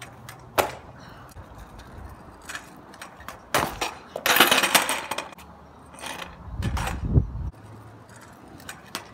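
Stunt scooter landing flat tricks on asphalt: a sharp clack of wheels and deck striking the ground about half a second in, another clack at about three and a half seconds followed by a second of loud scraping and rolling, then a low rumble of the wheels rolling over the asphalt near the end.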